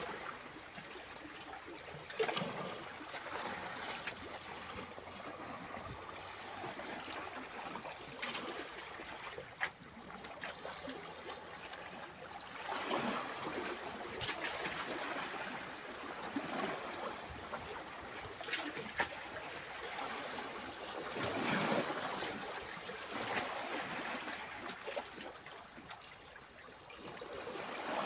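Small sea waves lapping and washing over a rocky shoreline, splashing and trickling back between the rocks. Each wave swells up every few seconds.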